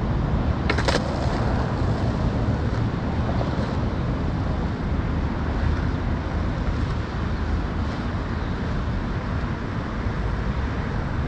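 A skateboard clacks down onto asphalt about a second in, over a steady low rumble of wind on the microphone.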